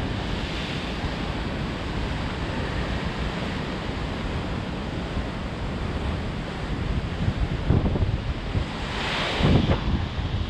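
Sea surf breaking and washing over rocks at the foot of a cliff, a steady rushing wash. From about 7 seconds in, wind gusts buffet the microphone in uneven low thumps, strongest near the end.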